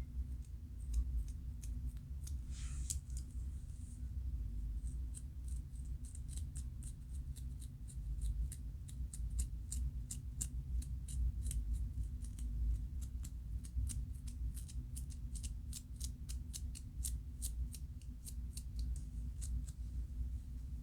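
Close scratching on a scalp with dandruff: short, crisp scrapes at about three a second, after a brief hiss about three seconds in, over a steady low hum.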